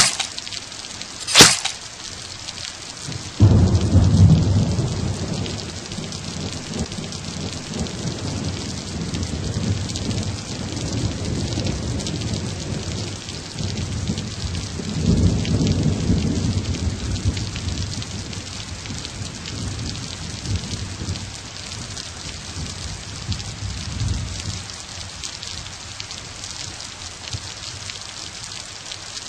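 Thunderstorm: steady rain hissing throughout, two sharp cracks of thunder at the start, then a loud low rolling rumble about three seconds in that slowly fades, and a second rumble around the middle.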